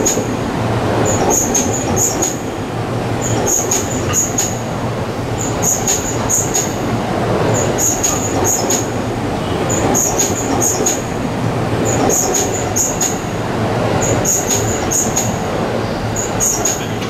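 Electric commuter train running past the platform at a steady speed: a continuous rumble, with the wheels clicking over rail joints in a quick cluster about once a second.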